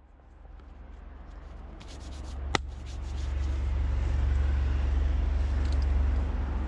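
A steady low rumble fades in over the first few seconds and then holds, with a few light clicks around two seconds in and one sharp click just after.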